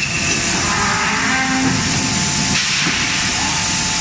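Loud, steady hissing rush of forge-shop machinery at a closed-die forging hammer, with a few faint held tones over it and no separate hammer blows standing out.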